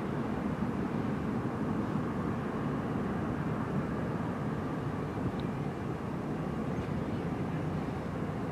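Steady low rumble of the cruise ship Anthem of the Seas' engines and exhaust as she sails past on the water.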